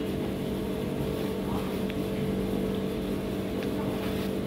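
Steady mechanical hum of a motor running continuously, a low drone that holds one pitch, with a few faint clicks over it.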